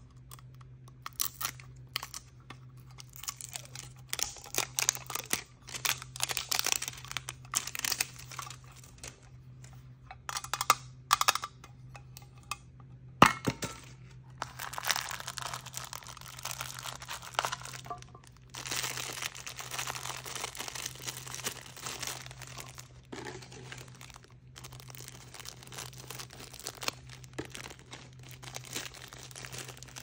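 Small cardboard box being handled and opened with scattered clicks and rustles, then a clear plastic bag of small pieces being crinkled and rubbed between the fingers. One sharp click stands out about 13 seconds in. A faint steady low hum runs underneath.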